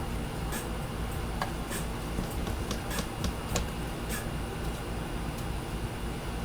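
Steady low hum of an air conditioner, with scattered light clicks and rustles of paper being handled.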